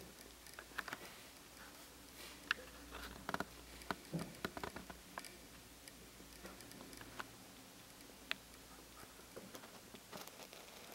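Faint, irregular light clicks and taps, bunched together for a few seconds about a third of the way in, then a single sharp click later, over quiet room tone.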